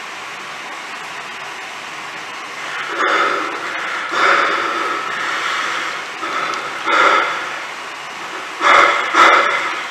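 Performance soundtrack of rushing, static-like noise: a steady hiss, then from about three seconds in, swells that rise and fall every second or two, with two short thumps near the end.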